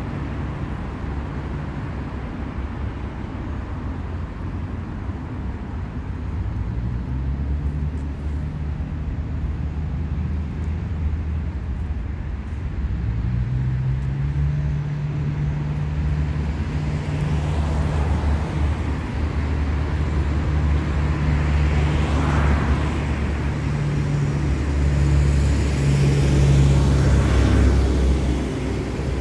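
City street traffic: a vehicle engine runs with a steady low hum close by, while cars pass, their tyre noise swelling and fading a few times in the second half.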